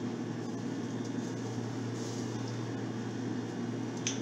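Steady low mechanical hum, with one short click near the end.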